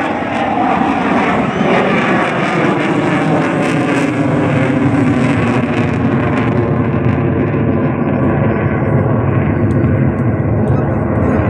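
Loud, steady jet-engine noise from a fighter jet flying aerobatic manoeuvres. About six or seven seconds in, the high hiss drops away and the sound turns duller.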